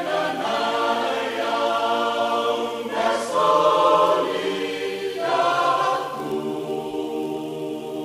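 Choir singing unaccompanied in harmony, holding long chords. New phrases come in about three seconds and five seconds in.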